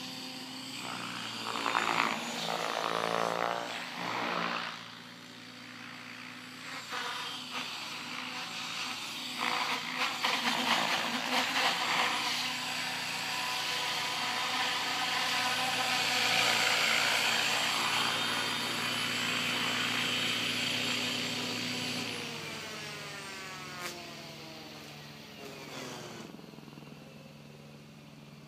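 Thunder Tiger Raptor E700 electric RC helicopter flying: motor whine and rotor blade noise that swell and shift in pitch as it manoeuvres. Over the last few seconds the sound falls in pitch and gets quieter.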